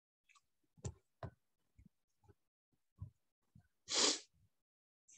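A few soft knocks and clicks, then about four seconds in a short, sharp breath noise close to the microphone, the loudest sound here.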